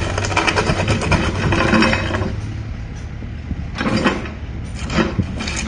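Diesel engine of an XCMG XC60D mini excavator running steadily, with loud rattling and clattering that swells about a second in, again around four seconds and near the end.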